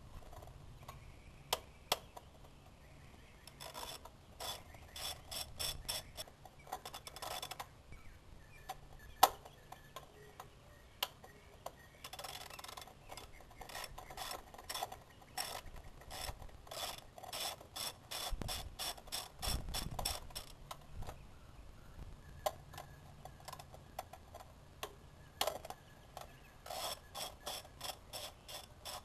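Hand ratchet with an extension and 10mm socket clicking in runs of quick, even clicks as it turns bolts on top of the Honda CR-V's engine. One sharper knock about nine seconds in.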